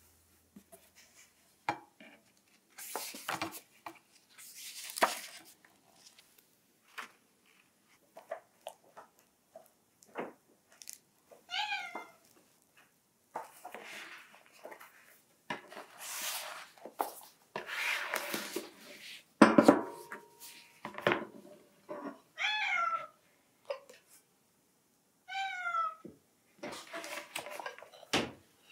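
A house cat meowing several times, pestering to be let out. Between the meows, book pages rustle as they are turned, with small clicks of crockery and one sharp knock about two-thirds of the way in.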